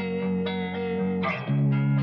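Background music: guitar playing sustained plucked chords over a bass line, changing chord about one and a half seconds in.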